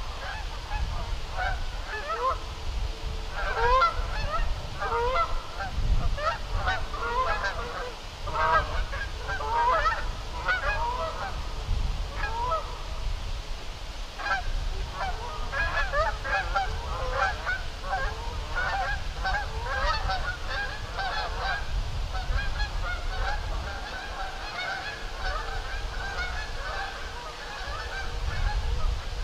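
A flock of birds calling continuously, many short overlapping calls, over a low rumble.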